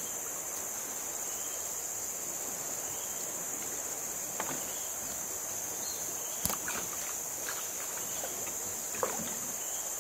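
Steady high-pitched insect chorus from the riverside forest, with a few light knocks from handling in the boat, the sharpest about six and a half seconds in.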